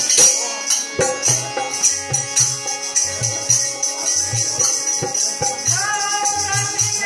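Devotional bhajan music: a harmonium holding chords, a hand drum beating a steady rhythm and a hand-held tambourine jingling throughout. A male voice starts singing about six seconds in.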